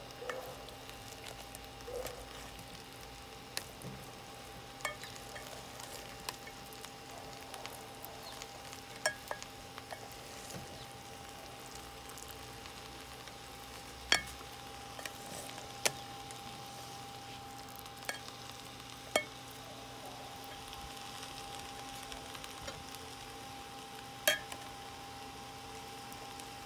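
A plastic rice paddle stirs and fluffs freshly cooked rice in a metal hagama, with soft scraping. Several sharp knocks of the paddle against the pot stand out as the loudest sounds.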